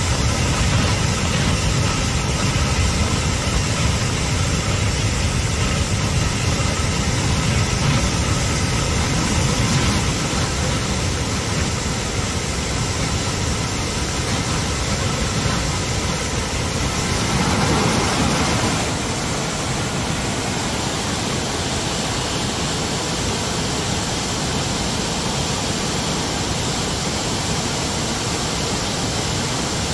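Steady rush of a swollen, flooding river. A low rumble lies under it until about two-thirds of the way in, when the sound changes to an even hiss.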